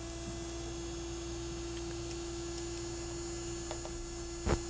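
Steady faint electrical hum holding one even tone, with a single light metallic click of the small hex wrench on the collar near the end.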